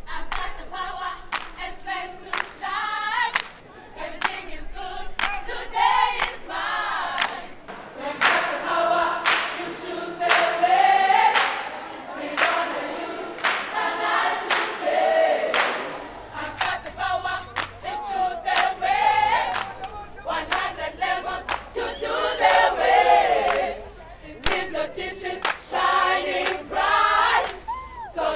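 A choir singing an upbeat song together, with sharp claps through it.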